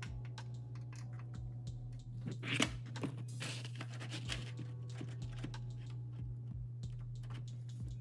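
Small clicks and plastic rattling of power cables being handled and plugged into the modular sockets of a Corsair SF750 SFX power supply, with a louder stretch of rustling about two to four seconds in, over a steady low hum.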